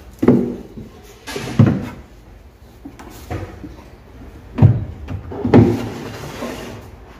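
Hollow wooden knocks and thuds of melamine particleboard being handled: spacer boards laid down and a melamine drawer box set on them against the cabinet. About five bumps, the loudest in the middle and about two thirds of the way in, with light scraping between them.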